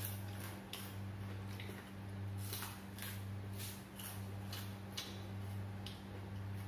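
People eating at a table: short, irregular clicks and crunches of chewing fried chicken nuggets and of fingers and spoons on plates, a few a second, over a steady low electrical hum.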